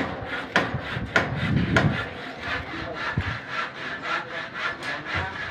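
Metal roofing work on a frame of steel purlins: sharp, regular strokes about one every 0.6 s for the first two seconds, then a quicker, fainter run of short strokes.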